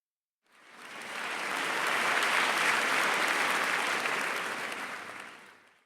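Audience applauding, fading in about half a second in, swelling and fading out again near the end.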